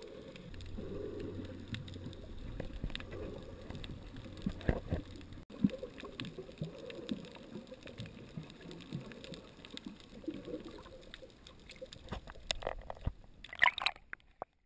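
Muffled underwater sound picked up by a submerged camera: water sloshing with scattered knocks and clicks, and a low steady hum for the first few seconds. Near the end the camera breaks the surface and there is splashing.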